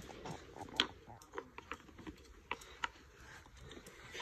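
Scattered light taps and clicks from a toddler playing with a wooden peg puzzle on carpet, with one sharper click a little under a second in.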